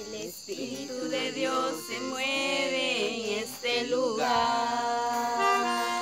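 Live amateur music: an electronic keyboard playing held notes, with voices singing over it for about the first four seconds, then the keyboard holding a steady chord.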